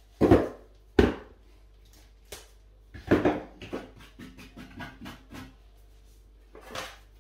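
Two sharp knocks in the first second, then a cluster of knocks and a string of lighter clicks: a cordless multi-tool and pieces of MDF being handled and set down, with the tool not running.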